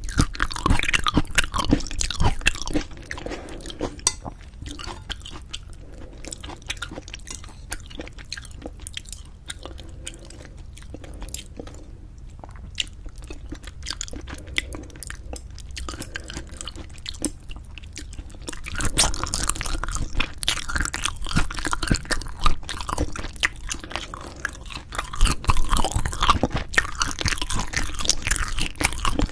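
Close-miked chewing of braised spicy chicken with cheese: dense wet smacks and clicks of mouth and food, softer through the middle and louder again in the last ten seconds.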